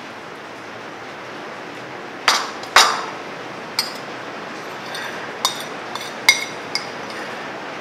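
Metal spoon clinking against a ceramic plate while scooping up the last of the soup: about six sharp clinks, the two loudest close together about two and a half seconds in, over a steady background hiss.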